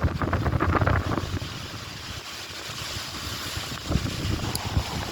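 Gusty wind buffeting the microphone in low rumbling bursts, easing for a couple of seconds in the middle before picking up again.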